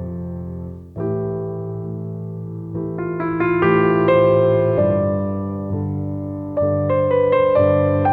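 Slow, soft piano music: sustained chords with a few melody notes between them, a new chord struck about a second in and another near the end.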